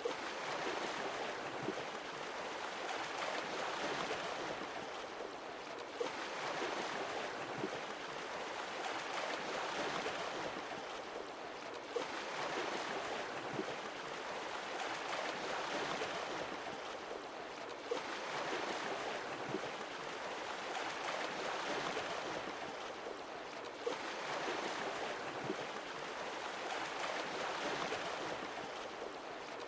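Sea waves washing in, each surge swelling and easing off in a regular cycle of about six seconds.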